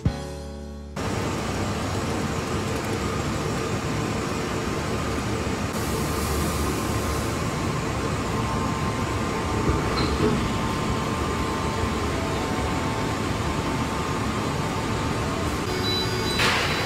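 Steady hum and hiss of industrial machinery in a paper mill around a roll splitter guillotine, after the last second of a music jingle. A light click about ten seconds in and a short hiss near the end.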